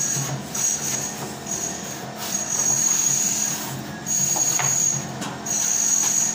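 Steel plastering trowel scraping over wet plaster on a block wall, in repeated strokes with a high squeal on each, over a steady low hum.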